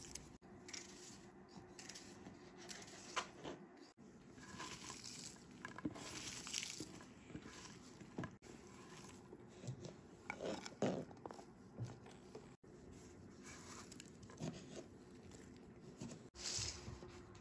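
Knife slicing a raw onion held in the hand, with soft crisp cuts at irregular intervals, and the rustle of the sliced onion being gathered and handled.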